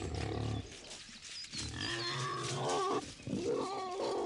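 Wild boar grunting and growling: a run of low, rough calls, with a few short high squeaks about a second and a half in.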